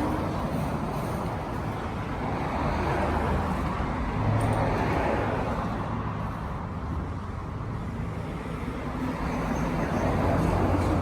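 Steady rushing noise with a continuous low hum underneath, swelling and easing slightly but with no distinct events.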